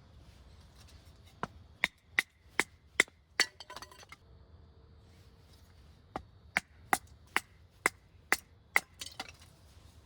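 Two runs of sharp, evenly spaced knocks, about seven in each at two to three a second, several with a short ringing note.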